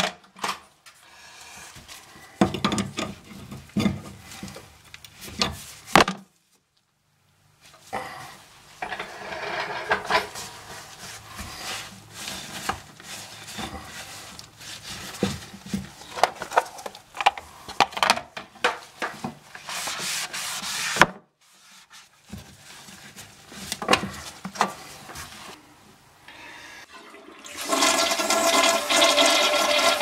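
Scattered clicks and rubbing of hands working at the toilet's wall supply valve and line, then, near the end, the toilet flushing with a steady loud rush of water as the newly replaced fill valve is tested.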